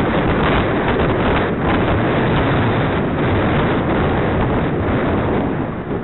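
Steady, loud wind buffeting on the microphone of a bike-mounted camera while cycling.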